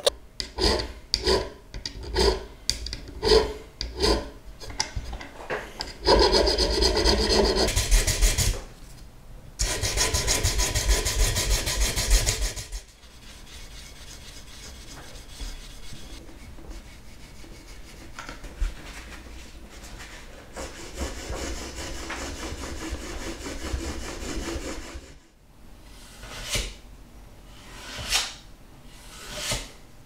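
Hand file rasping on the steel end of an old rigging pocket knife held in a vise, in regular back-and-forth strokes about twice a second. Longer stretches of continuous scraping follow, then a quieter steady rubbing of abrasive paper on the metal, and separate strokes return near the end.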